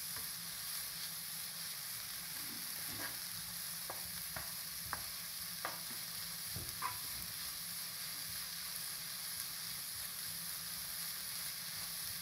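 Sliced onions sizzling with a steady hiss in a hot pan with a little water and salt and no oil yet. A utensil knocks and scrapes against the pan several times between about three and seven seconds in as they are stirred.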